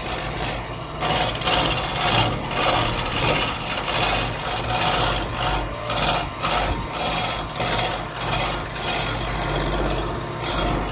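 A hand-held turning chisel cutting into a wooden blank spinning on a wood lathe, a rough rasping scrape that swells and eases with each pass of the tool. Under it runs the steady low hum of the lathe.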